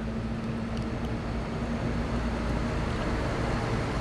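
Steady low background hum with a faint held tone that fades out about two and a half seconds in.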